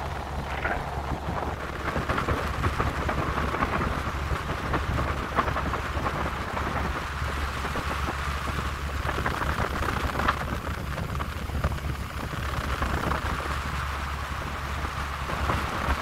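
Aluminium boat underway: the outboard motor running steadily under a constant wash of wind buffeting the microphone and water rushing past the hull.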